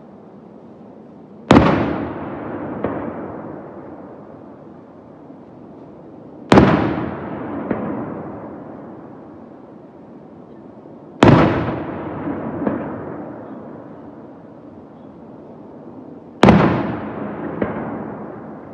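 Four aerial firework shells bursting about five seconds apart, each a sharp boom followed by a long fading rumble and a smaller crack about a second later.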